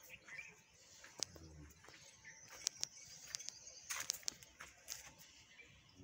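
A cow lows once, short and low, about a second in, amid a scatter of faint, sharp, high ticks that crowd together in the middle of the stretch.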